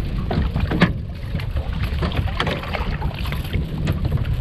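Low, steady rumble of wind buffeting the microphone on an open boat, with scattered sharp clicks and knocks from handling gear, the loudest a little under a second in.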